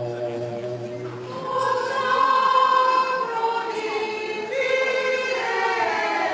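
Voices singing Greek Orthodox Byzantine chant for the Good Friday Epitaphios procession, a slow melody of long held and gliding notes. A low held note sounds beneath the melody and drops out about two seconds in.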